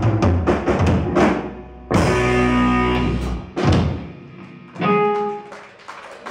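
Live rock band with electric guitar, bass guitar and drum kit closing out a song: fast drumming for about a second, then three big accented hits, each with an electric-guitar chord ringing and dying away, the last one about five seconds in.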